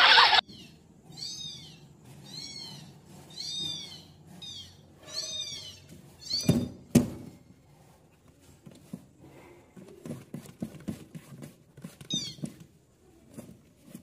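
A cat mewing in a quick run of short, high, rising-and-falling mews, then two thumps about six and a half seconds in, followed by soft scattered taps and a few more mews near the end.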